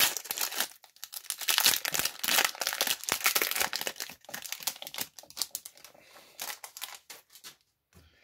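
Foil booster-pack wrapper of a Magic: The Gathering pack crinkling and tearing as it is ripped open by hand. The crackling is dense and loud for the first four seconds or so, then thins to scattered quieter rustles and stops shortly before the end.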